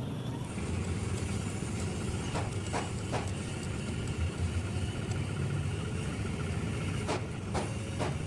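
Diesel engine running with a steady low rumble, with a few short metallic knocks about two and a half seconds in and again near the end.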